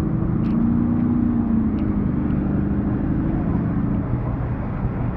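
A car engine running steadily, with a low, even note that eases off slightly about four seconds in.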